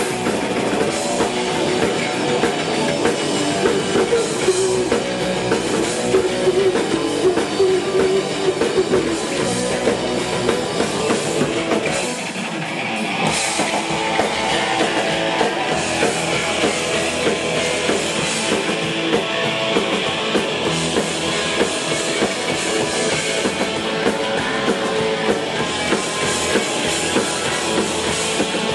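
Live rock band playing a song on electric guitars and drum kit, with no vocals. The band drops back briefly about twelve seconds in.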